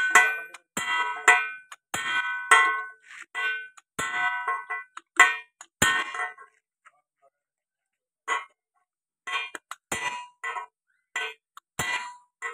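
Hammer blows on a metal drift driving a new bush into a tractor's front-axle spindle bore: a run of ringing metallic clangs, two or three a second, with a gap of about two seconds midway before the strikes resume.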